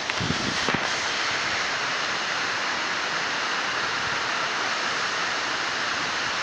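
Steady rush of a waterfall, with a few low knocks in the first second.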